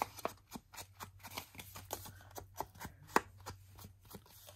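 A foam ink blending tool dabbing and rubbing ink onto the edges of a small paper square: a run of irregular soft taps and paper scuffs, with one sharper tap about three seconds in.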